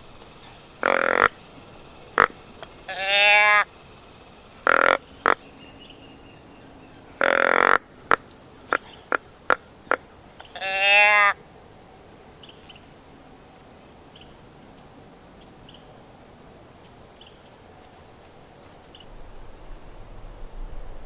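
Deer grunts and bleats: several short loud blasts and two longer croaky calls, with a run of sharp clicks between them. In the second half only faint bird chirps are heard.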